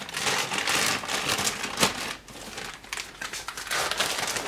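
Thin plastic bag crinkling and rustling in irregular bursts as it is handled and opened to unwrap a new part.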